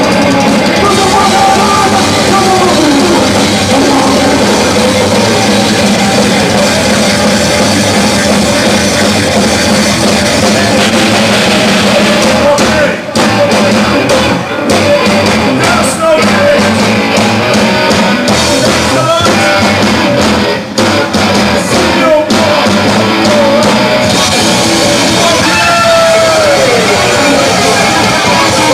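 A heavy metal band playing live and loud, with drum kit and full band sound, broken by a few brief stops in the music about halfway through.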